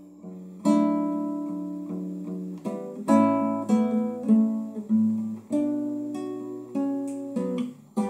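Acoustic guitar played solo: a chord struck and left to ring, then picked single notes over a bass line, each note fading before the next.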